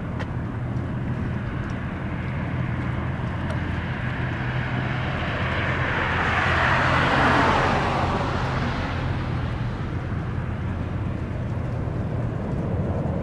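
Twin-engine jet airliner on final approach passing low overhead: the engine noise swells to a peak about seven seconds in, then falls in pitch and fades as it goes by, over a steady low rumble.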